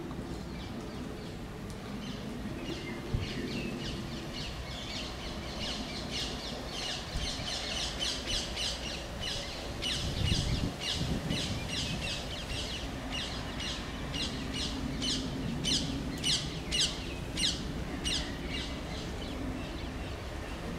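A small bird singing a long run of quick, repeated high notes, about two or three a second, growing louder toward the end, over a low background rumble.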